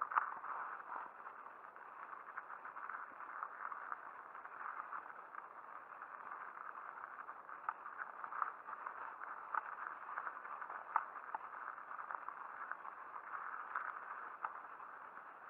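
Mountain bike riding over a snow-covered trail: tyres rolling and crunching through snow in a steady hiss, with frequent sharp clicks and rattles from the bike over the bumps.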